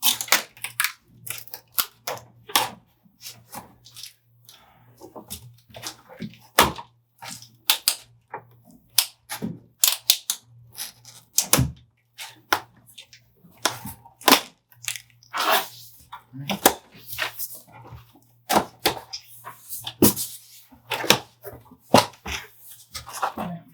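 Packing tape being cut and ripped off a cardboard box: irregular rips, crackles and thunks of cardboard being handled, many short sharp sounds at uneven intervals.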